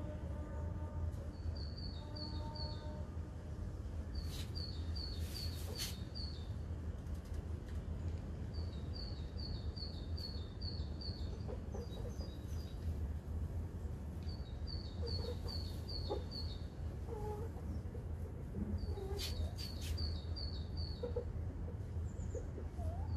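Chickens in a pen: hens giving a few soft low clucks, mostly in the second half. A small bird repeats short runs of five or six high chirps every few seconds, over a steady low background hum.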